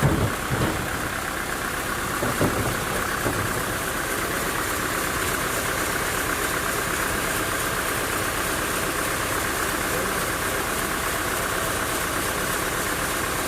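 Sawmill machinery running steadily, with a few short knocks in the first three seconds.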